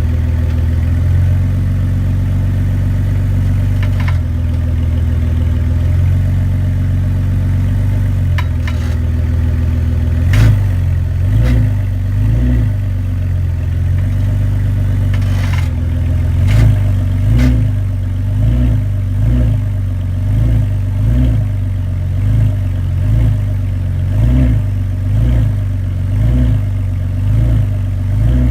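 A BMW E46 328i's 2.8-litre inline-six running. Sharp knocks come about ten seconds in and again near fifteen seconds, then the engine note swells and falls about once a second. The knocks are the rear clunk that the owner puts down to a cracked rear differential bushing.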